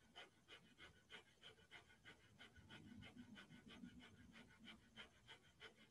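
Breath of Fire done through the nose: a faint, rapid, even run of short forceful exhalations, about three a second, pumped from the abdomen.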